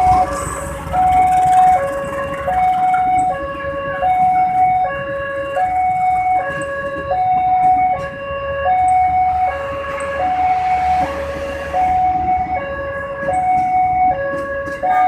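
Railway level-crossing warning alarm sounding a repeating two-note electronic tone, high then low, over and over. Under it, a passenger train's coaches roll past with a low rumble of wheels on rail.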